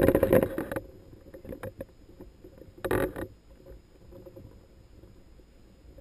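Muffled water sounds picked up through an underwater camera housing: a short burst of sloshing and knocking at the start and another about three seconds in, then faint scattered clicks over a low rumble.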